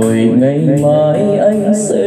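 Vietnamese bolero song: a male voice sings a drawn-out line that wavers in pitch with vibrato, over the backing accompaniment.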